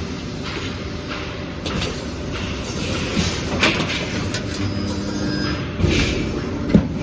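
Steel grating welding machine running on a production line: a steady industrial rumble with irregular sharp knocks, about five in all.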